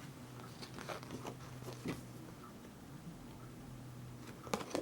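Faint handling noise of album postcards being shuffled and turned over: scattered soft clicks and rustles, with a sharper click near the end, over a faint steady hum.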